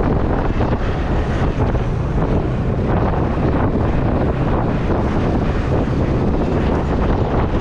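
Wind rushing over the microphone of a moving motorcycle, a steady loud noise with the engine's low hum underneath.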